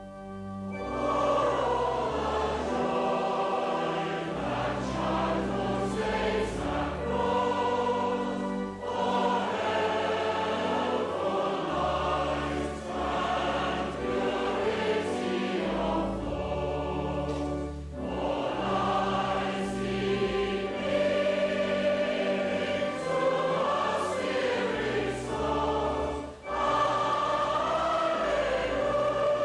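Church choir and congregation singing a hymn over steady held low accompanying notes, with short pauses between lines.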